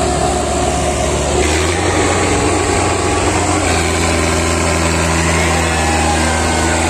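Diesel engines of an Indo Farm 3055 and a Farmtrac 6055 tractor running at full throttle under heavy load as they pull against each other on a chain. The engine note shifts about a second and a half in and again near four seconds.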